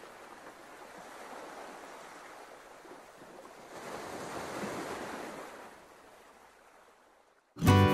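Sea water washing in a soft, even hiss that swells about four seconds in and fades away. Loud music cuts in just before the end.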